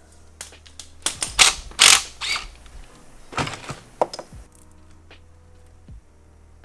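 Metal engine parts being handled on a steel workbench: a run of sharp clanks and clicks, loudest in the first half, then fewer and quieter.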